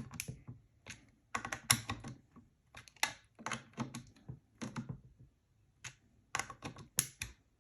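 Irregular light clicks and taps of small parts being handled, coming in quick clusters with a short pause a little past the middle.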